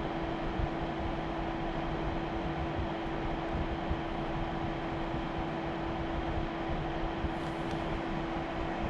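Car air purifier's high-speed motor fan running steadily, a fan-like whoosh of air with a constant hum.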